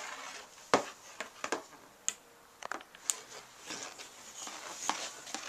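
Cat moving about in a cardboard box: irregular light taps, sharp clicks and short scratchy rustles, the loudest a sharp click about three-quarters of a second in.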